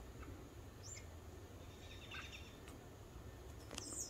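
Faint short high-pitched chirps, a few scattered and then a quick run of them near the end, over a low steady rumble of forest background.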